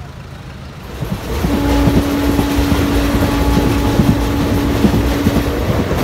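Passenger express train running, heard from inside the coach: a steady rumble with repeated knocks of the wheels over rail joints and a steady hum, starting about a second in.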